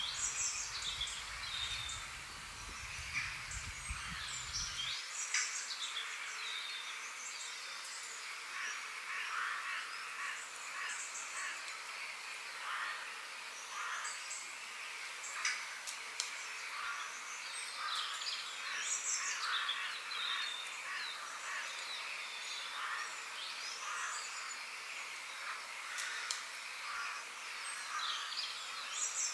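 Several birds chirping and calling, many short calls overlapping, over a steady background hiss of forest ambience. A low rumble underneath stops about five seconds in.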